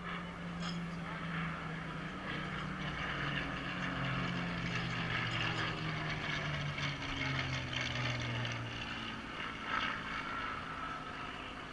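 Drone of two Avro Lancaster bombers' Rolls-Royce Merlin V12 engines as they fly past, the pitch sliding slowly down over about nine seconds before the engine note fades.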